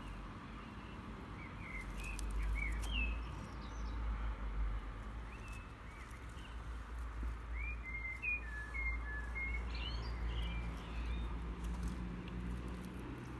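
Outdoor ambience with scattered short, high bird chirps, thickest about eight seconds in, over a steady low rumble.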